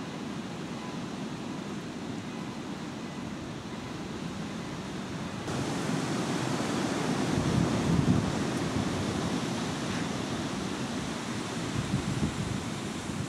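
Wind rushing steadily and buffeting the microphone in gusts, with a low rumble that swells about eight seconds in. The hiss grows brighter about five and a half seconds in.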